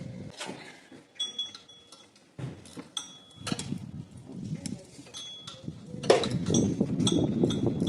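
Metal hand tools clinking: a string of sharp metallic taps, several followed by a brief ringing tone, then a louder, busier clatter of metal on metal from about six seconds in.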